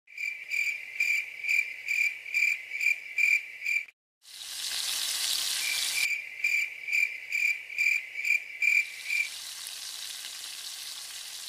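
Crickets chirping in a steady rhythm, about two chirps a second, cut off for a moment about four seconds in. A hiss of frying comes up after the break, and once the chirps stop near the end only the steady sizzle of food frying in a wok is left.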